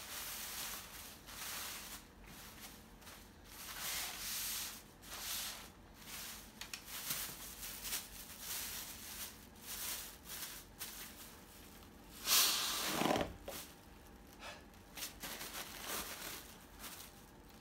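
Thin plastic carry bag crinkling and rustling in fits and starts as it is handled and folded, with one louder, longer rustle about twelve seconds in.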